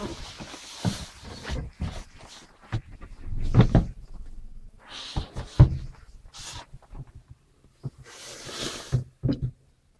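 Irregular thumps, knocks and rustling from a handheld camera being carried and bumped about inside a boat's cabin and up through the hatch. It stops abruptly near the end.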